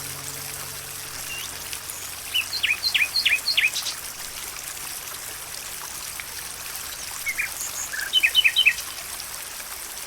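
Nature ambience: a steady trickling hiss of running water, with two short runs of quick bird chirps, one about two and a half seconds in and another about eight seconds in.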